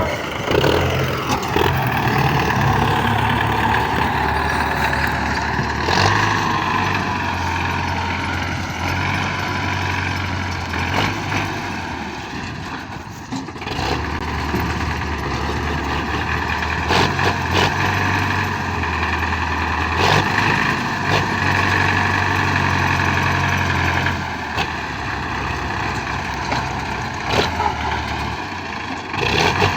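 Combine harvester running steadily, its engine and machinery giving a steady whine over a low hum that rises and falls every few seconds, with occasional knocks.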